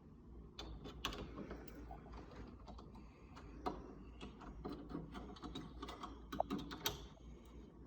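Faint, irregular clicks and taps of door knob hardware being fitted into a door while the spindle and screw holes are lined up.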